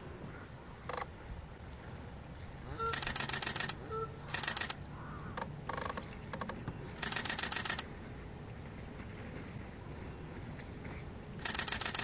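Several bursts of rapid camera shutter clicks, a stills camera firing on continuous shooting, each burst lasting under a second.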